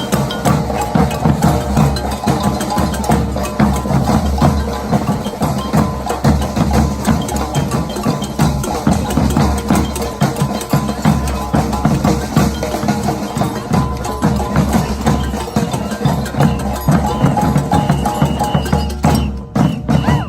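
Band music with a steady, driving beat on drums and percussion over held pitched notes.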